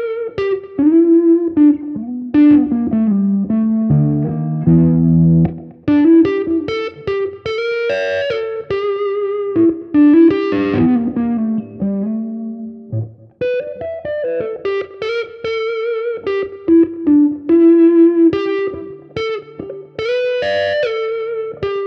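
Electric guitar, a Telecaster on its blackguard 'dark circuit' setting (neck pickup only, through a bassy capacitor with no tone control), played with gain: single-note lead lines with bends and vibrato on sustained notes. A few thicker chord-like strums come about four to five seconds in.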